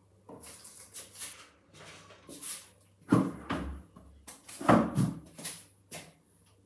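Household handling noises: rustling and irregular knocks, the two loudest about three seconds in and just before five seconds.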